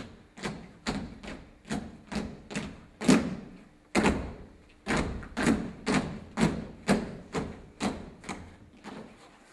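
Dancers' feet stamping on a stage floor in unison, a steady beat of sharp echoing thumps about two to three a second, the loudest about three seconds in, with short gaps around three and four seconds in. A faint steady hum runs underneath.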